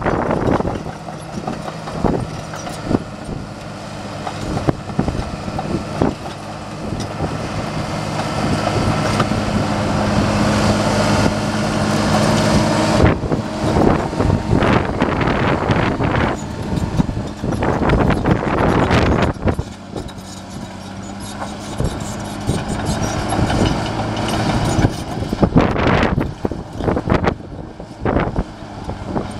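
Caterpillar D5M XL crawler dozer working: its diesel engine runs steadily and grows louder under load partway through, while the blade pushes dirt and stones. Sharp knocks and rattles come from the steel tracks and rocks from about halfway on.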